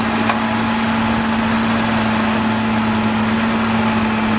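Heavy six-wheeled dump truck's diesel engine running steadily, with a constant hum, while the raised bed tips out a load of sand.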